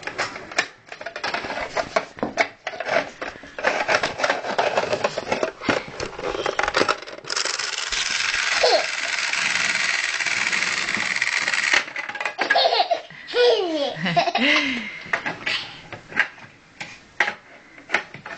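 A baby laughing and squealing between many small clicks and knocks. A steady loud hiss runs for about four and a half seconds in the middle, starting and stopping abruptly.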